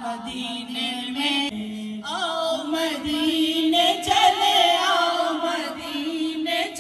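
A woman's solo devotional recitation, chanted unaccompanied in long, wavering held notes with ornamented turns.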